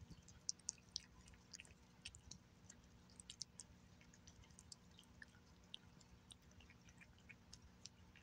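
Gray tabby cat eating flaked wet whitefish and tuna from a glass saucer: faint, irregular wet chewing clicks, several a second.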